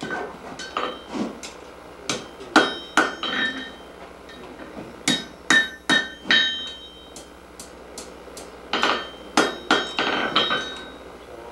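Blacksmith's hammer striking a red-hot iron rod on an anvil to shape it. It comes in bursts of several quick blows with short pauses between, and each blow rings metallically.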